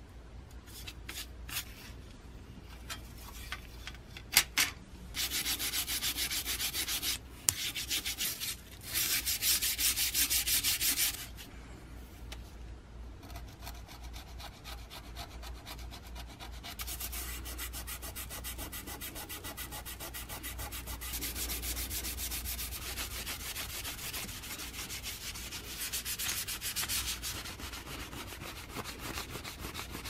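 Hand scraping and rubbing on a metal control-panel plate. A few light scratches come first, then three loud spells of fast scraping strokes, then a softer, steadier rubbing for the rest.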